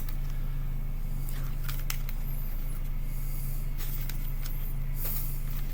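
Steady low background hum with a few faint clicks of a plastic CD jewel case being handled and turned over.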